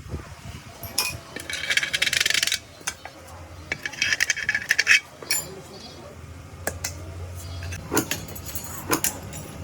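Metal scraping and clinking on a wok: two spells of rapid, rasping scraping, each about a second long, followed by a few sharp metallic clinks.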